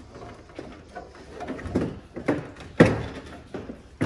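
Car rear bumper cover being pushed and knocked onto its clips, making several dull thuds and clunks, the loudest nearly three seconds in.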